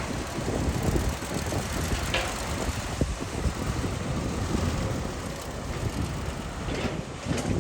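Excavator and truck engines running steadily with a low rumble, broken by a few short knocks and scrapes, about two seconds in, three seconds in and near the end.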